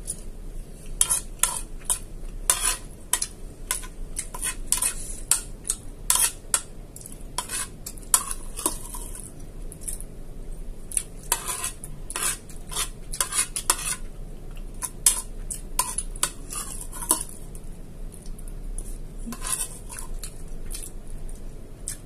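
Metal spoon clinking and scraping against a ceramic plate in a quick, irregular run of clinks that thins out near the end, as the last of the food is scraped up and the plate is emptied.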